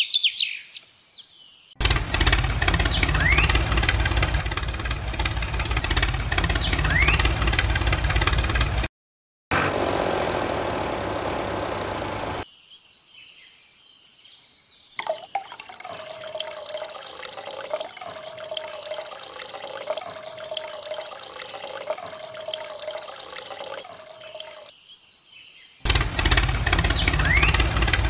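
An engine running with birds chirping over it, cut off and later taken up again, with a stretch in between of a small motor's steady, wavering whine over a hiss of running water.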